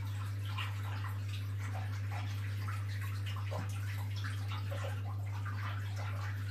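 Aquarium water splashing and dripping in small irregular drops, with one slightly stronger splash about three and a half seconds in, over a steady low hum.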